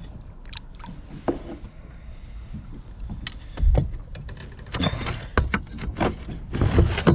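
Kayak being paddled and handled: clicks and knocks against the hull, a heavy low thump a little past halfway, then several splashy paddle strokes, the loudest near the end.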